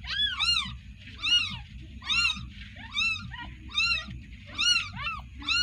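Newborn kitten mewing: short, high-pitched cries that rise and fall in pitch, repeated about once a second, some in quick pairs.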